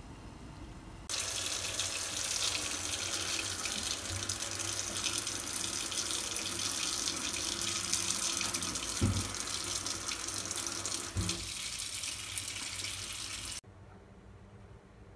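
Kitchen tap running into a stainless steel sink, pouring onto boiled broccoli in a plastic colander; it starts about a second in and stops suddenly near the end. Two dull knocks about two seconds apart come partway through.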